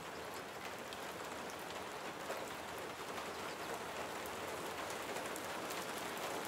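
Steady rain falling: an even hiss with the faint patter of individual drops, growing slightly louder toward the end.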